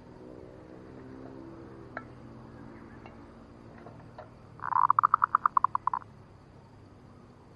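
Zebra dove (perkutut) cooing: a quick run of about a dozen staccato notes, the first one longer, a little past halfway through. This is the dove's lure song used to draw wild doves to a trap. A few faint ticks come before it.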